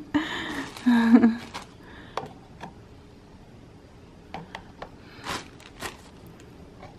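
A brief voice sound at the start, then a few light, scattered plastic clicks and taps as the mesh mixing screen of a plastic shaker cup is lifted off and handled over the rim.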